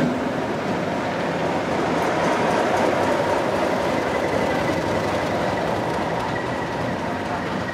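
Class 37 diesel locomotive with an English Electric 12-cylinder engine running as it moves past at close range, with the train's wheels running on the rails. The noise is steady and dense, with a thin high tone showing faintly in the second half.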